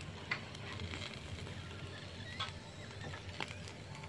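Metal grill tongs clicking against a wire grilling rack over a charcoal fire: a few light, separate taps over a low, steady background.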